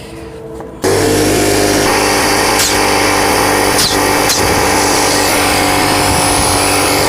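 Small portable air compressor switching on about a second in, then running loud and steady as its motor and pump build pressure.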